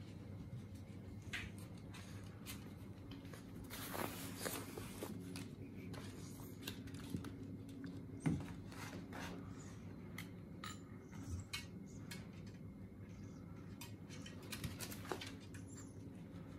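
Scattered light clicks and taps of dogs' claws on wooden furniture and floorboards, with a louder knock about eight seconds in, over a faint steady low hum.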